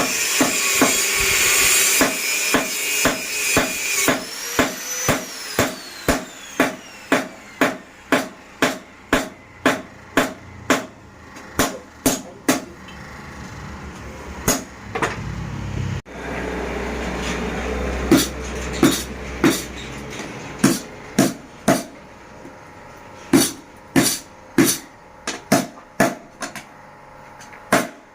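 Blacksmith's mechanical power hammer striking hot leaf-spring steel over and over, about two blows a second, while the tool is forged to shape. A high whine with a grinding noise runs through the first few seconds and fades out.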